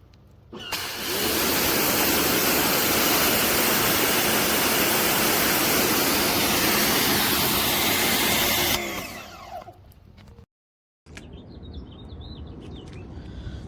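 Sun Joe SPX2688-MAX electric pressure washer switched on: its motor runs loudly with hissing, spraying water, which the owner says "just goes nuts" because of a part broken from the factory. It cuts off after about eight seconds, and a fainter hiss follows after a short break.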